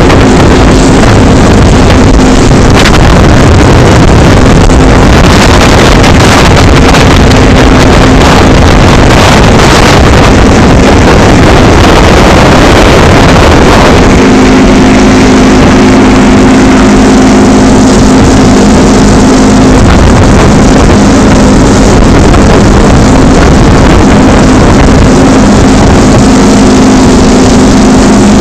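Motorboat running at speed: a steady engine hum under heavy wind rush on the microphone and water noise. The engine hum comes through more strongly about halfway through.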